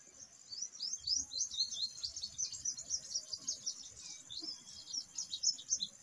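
Purple sunbird singing: a rapid, high-pitched twittering of short chirps that starts about half a second in and stops just before the end. It sits over a steady high trill of crickets.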